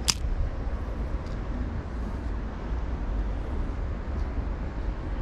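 A spinning rod being cast: one quick, high swish of the rod and line right at the start, over a steady low rumble of town traffic.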